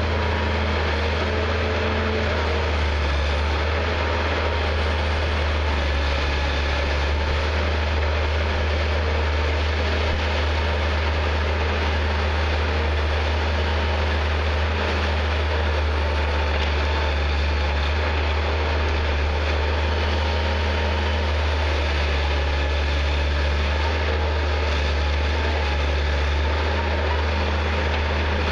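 Diesel engine of a Prentice 210E knuckleboom log loader running at a steady speed: an even, deep hum with no revving or breaks.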